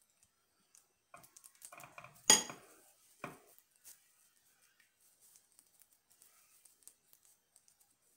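A metal spoon knocking against a bowl: a few light taps, then one loud ringing clink about two seconds in and a duller knock a second later. After that only faint scattered ticks.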